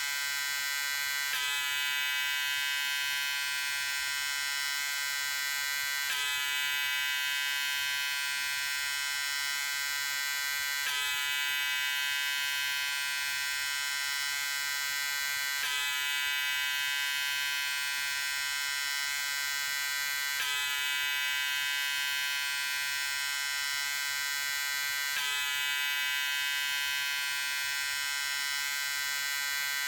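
Electric shaver running with a steady buzz. A slight break in the sound repeats about every five seconds.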